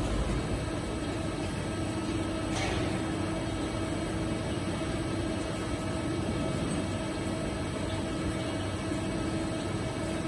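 TK68-series CNC horizontal boring mill drilling into a steel beam: the spindle and twist drill run steadily, with a constant machine hum and cutting noise. One short tick about two and a half seconds in.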